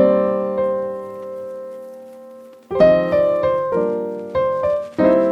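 Background piano music: a chord struck at the start and left to ring and fade for over two seconds, then a new phrase of struck notes and chords.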